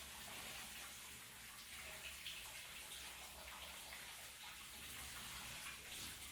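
Shower running: water spraying and splashing steadily in a small bathroom, with a faint low hum underneath.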